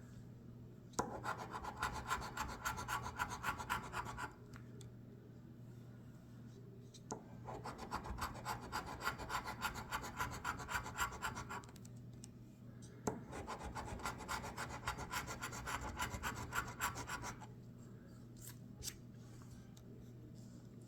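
A scratch-off lottery ticket being scratched: three bouts of quick, rapid rubbing strokes scraping off the latex coating, with short pauses between them and a few light scrapes near the end.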